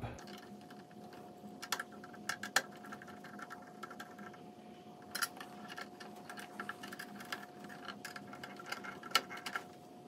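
Small screwdriver working the screw terminals of a metal switching power supply as the power leads are hooked up: faint, scattered clicks and scrapes of metal on metal, a few sharper clicks among them.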